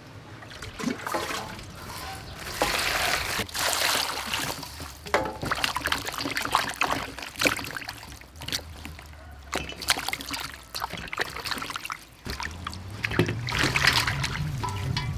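Water sloshing and splashing in a metal bowl as hands rub and rinse chillies, lemongrass and limes, in irregular swishes and drips.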